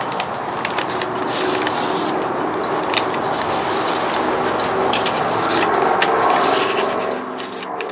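Paper rustling and crinkling as an envelope is handled, opened and a folded letter drawn out and unfolded, with many small crackles; it eases off near the end.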